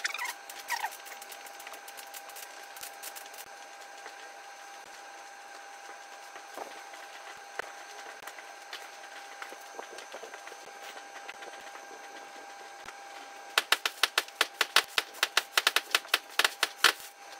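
A cloth rubbing briskly over the slate clock case, a fast run of about six strokes a second in the last few seconds, wiping blacking over the faded slate. Scattered light knocks and handling come before it, over a steady hum.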